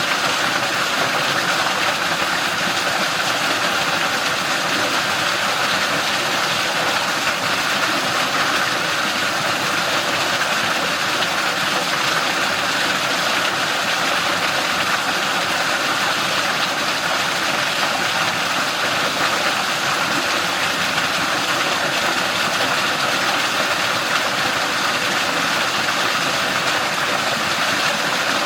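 Mountain stream water rushing and splashing between rocks, a steady, unbroken rush.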